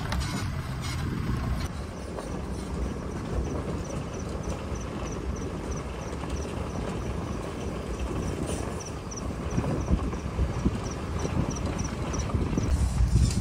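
Open safari pickup driving slowly over a plank bridge and a rough dirt track: a steady low rumble of engine and tyres with irregular knocks and rattles, louder and bumpier near the end. A faint high chirp repeats about three times a second through most of it.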